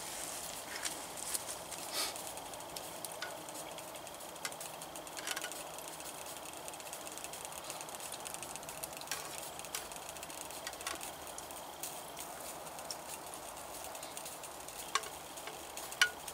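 A metal spoon clicking and scraping against a tin soup can during eating, in scattered sharp clicks with the sharpest pair near the end. Under it runs a steady faint hiss from a pot of water heating on an alcohol stove.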